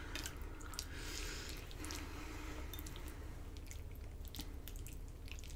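Quiet chewing of a mouthful of soft pasta, with a few faint clicks of a metal fork in a glass baking dish.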